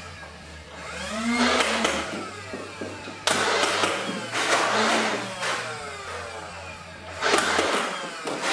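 Motorized Nerf blaster firing foam balls in several bursts, each starting with the motor's whine rising as it spins up, followed by the rattle of rapid fire.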